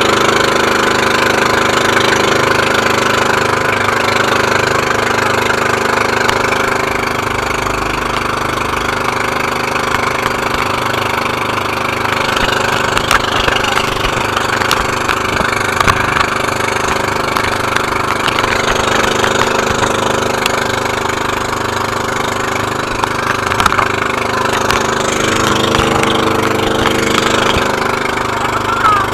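Engine of a motorized outrigger boat (bangka) running steadily under way, with wind and water rushing past the hull.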